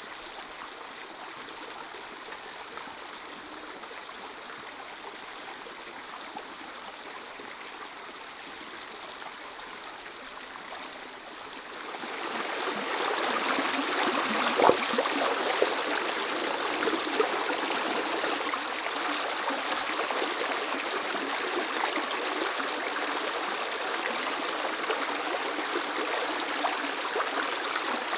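Shallow stream flowing, a soft steady rush of water that turns abruptly louder and brighter about twelve seconds in, becoming the splashing of water running over rocks in a small riffle.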